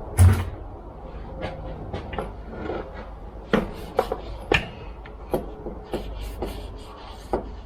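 Handling noises: a heavy thump about a quarter-second in, then scattered sharp clicks and knocks of hard objects being picked up and set down.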